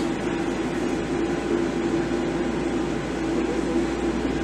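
Steady cabin drone inside a Boeing 737-700 airliner: a constant hum of engines and air conditioning with a steady low tone running through it.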